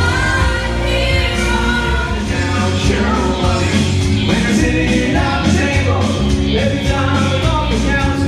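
Band music with a singer over a steady beat.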